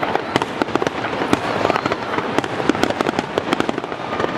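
Fireworks going off in a dense, continuous run of sharp cracks and pops, many a second, with no pause.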